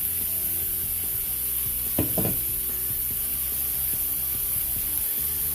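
Chicken thighs frying in butter in a pan, a steady sizzle, with a short knock or scrape about two seconds in.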